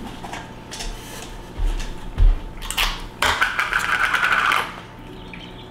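Plastic hummus tub being handled and opened: a few knocks and clicks, then about a second and a half of fast, crackling tearing as the plastic seal is peeled off the tub.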